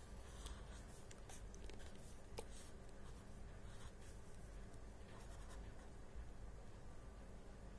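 Faint writing: a pen scratching out a series of short strokes during the first four seconds or so, over a low steady room hum.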